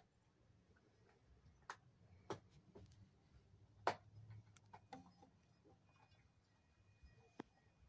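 Near silence with about half a dozen faint, irregular clicks and taps from handling, the sharpest about four seconds in.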